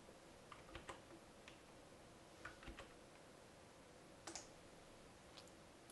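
Faint scattered clicks from a computer keyboard and mouse, in small groups over near-silent room tone.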